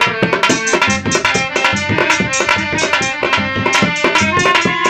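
Dholak and harmonium playing an instrumental folk passage: quick, steady hand-drum strokes under held harmonium chords.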